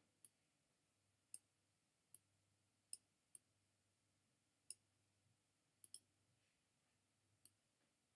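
Faint clicks of a computer's pointing device as items are clicked and dragged on screen: about nine short, sharp clicks spread unevenly over eight seconds, two of them in a quick pair.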